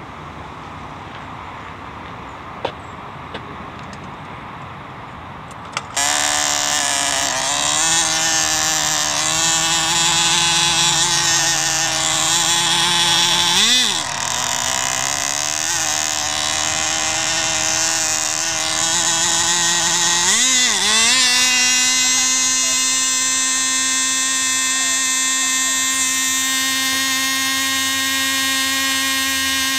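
Irvine 15 "special" 2.5 cc two-stroke glow engine of an F2A control-line speed model, turning a single-blade carbon-fibre propeller, running at high revs on the ground as a loud high-pitched whine. It comes in suddenly about six seconds in, dips and wobbles in pitch twice, then holds a steady pitch for the last eight seconds or so. Before it, quiet open air with a few clicks.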